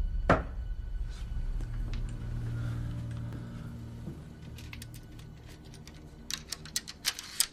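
Banging on a motel room wall: a heavy thud with a low rumble after it, then a quick run of sharp knocks near the end.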